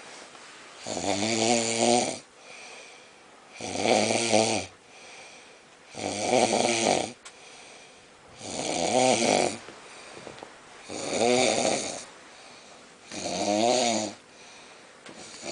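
A man snoring in deep sleep: six snores, each about a second long, coming about every two and a half seconds, with softer breaths in between.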